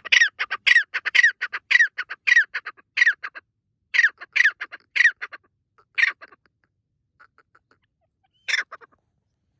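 Francolin calling in a rapid run of loud, repeated notes, about three a second, that slows and stops about six seconds in. A few faint notes follow, and one last loud call comes near the end.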